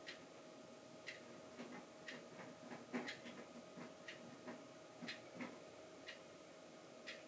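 A clock ticking about once a second, faint against a quiet room, with a low steady hum beneath.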